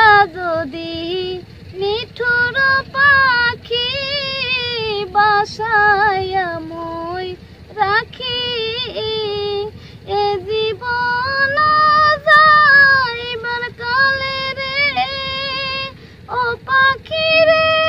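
A woman singing a song without accompaniment, in a high voice with wavering, held notes; a long steady note starts near the end.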